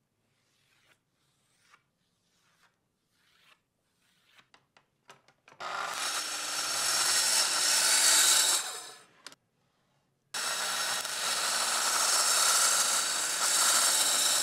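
Faint pencil strokes on plywood, then a Festool TS 55 plunge track saw cutting plywood along its guide rail in two long runs of about four seconds each with a short gap between them. The first run fades out at its end and the second stops sharply.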